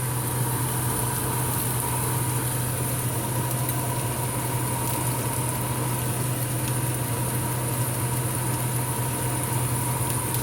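Turnips and red onion frying in a pan, a steady sizzle over a constant low mechanical hum.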